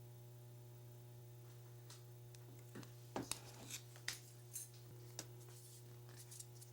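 Scissors cutting the rubber flap of a door sweep: a string of faint, irregular snips starting a little under three seconds in, over a steady low hum.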